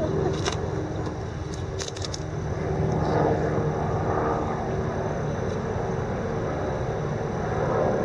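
City park background noise: a steady low rumble of distant Manhattan traffic that swells from about three seconds in, with a few faint clicks in the first two seconds.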